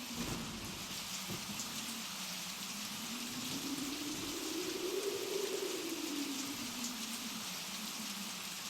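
Blizzard wind howling: a low moaning tone that slowly rises and falls over several seconds, above a steady hiss.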